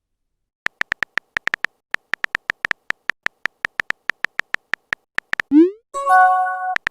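Phone-keyboard typing clicks, a quick irregular run of taps lasting several seconds, then a short rising swoosh as the message is sent and a brief electronic chat chime of steady tones.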